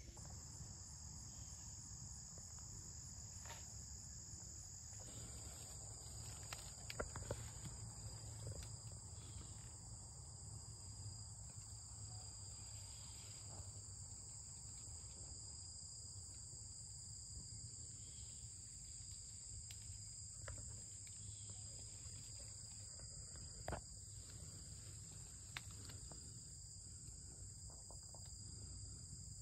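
Faint, steady chorus of insects trilling high in pitch, with a low rumble under it and a few soft clicks.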